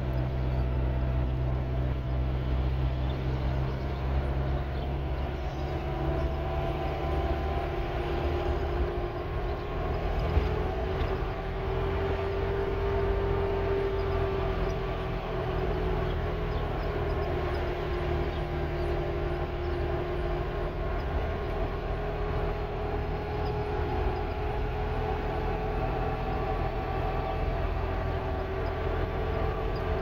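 Pickup truck driving on a dirt road, heard from inside the cab: a steady engine drone with a whine that drifts slightly in pitch, over a low road rumble.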